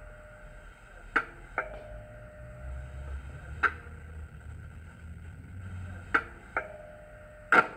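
Model Class 37 diesel locomotive's sound decoder playing a stationary engine idle through its loudspeakers: a low rumble that swells and eases over a steady hum. Sharp clicks come at irregular intervals every second or two, some followed by a short ringing tone.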